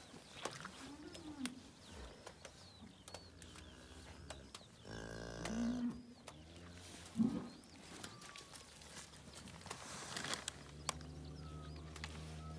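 Dairy cows lowing a few times: a long low moo about five seconds in and another near the end, with shorter calls in between. Birds call faintly in the background.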